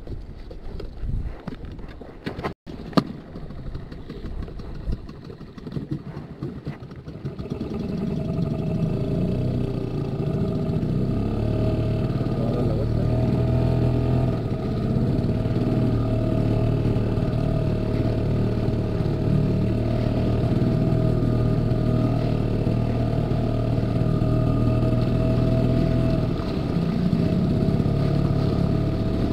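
Small Tohatsu tiller outboard motor pushing an inflatable boat. The first seconds are uneven knocking and wind on the microphone, with one sharp click. From about seven seconds in, the motor comes up to a steady, louder running speed and holds it.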